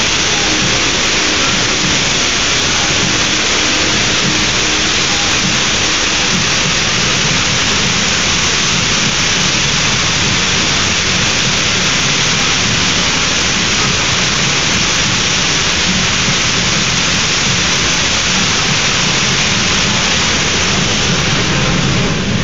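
Choreographed water-show fountain jets spraying and water pouring down into the pool: a loud, steady rush that eases slightly right at the end.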